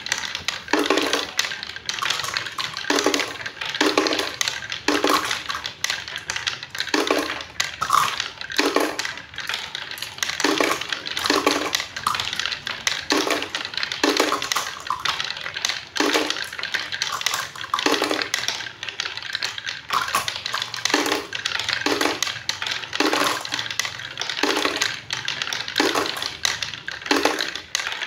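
Balls rolling down a wooden zigzag slope marble run: a steady rolling rumble on the wooden tracks, with a sharp wooden clack roughly once a second as the balls strike the turns and drop between tiers.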